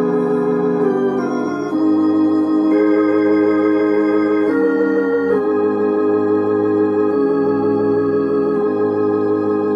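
Roland HP 704 digital piano played with an organ voice: a gospel hymn in full, sustained chords with a slight waver, the harmony moving every second or two.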